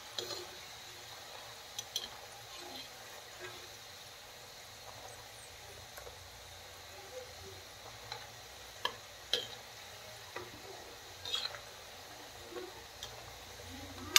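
Dough snacks deep-frying in hot oil in an iron kadai, a steady faint sizzle. A metal spoon clinks and scrapes against the pan in short sharp knocks every second or two as the pieces are stirred.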